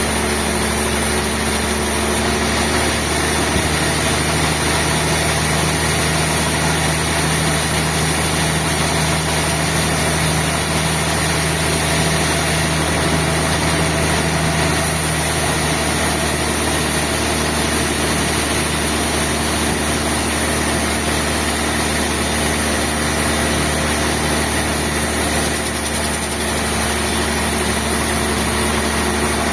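Industrial sawmill machinery running steadily, a loud continuous hum whose tone shifts in pitch about three seconds in and again about halfway through.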